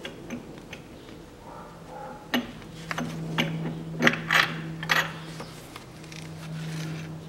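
Metal clicks and clinks as a crankshaft pulley is worked off its shaft with a bolt-on puller, the sharpest of them coming from about two seconds in, over a low steady hum.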